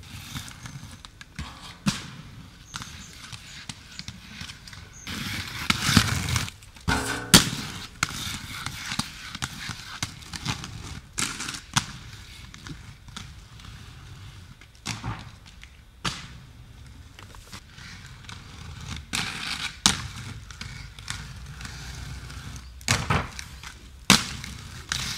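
Aggressive inline skates rolling over paving stones, with a scraping grind along a concrete ledge and sharp clacks, several times over, as the skates hit the ledge and the ground.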